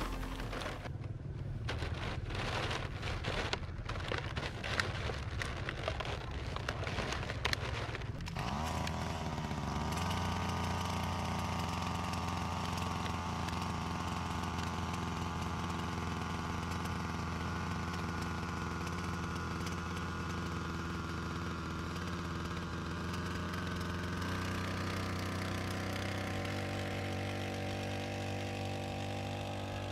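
Small petrol outboard motor running as the boat sets off. It is uneven and choppy for about the first eight seconds, then settles into a steady running note.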